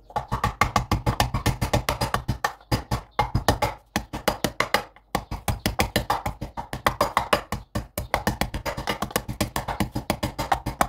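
Wooden pestle pounding garlic cloves in a ceramic mortar: rapid knocks, about five or six a second, with a few brief pauses.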